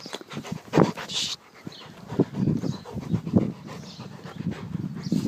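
Rottweilers panting right at the microphone in irregular bursts, with a few sharp knocks as they push against it.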